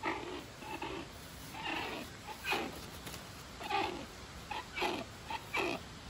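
Young rhinoceros hornbill calling: a series of about ten short calls, each a fraction of a second, coming every half second to a second.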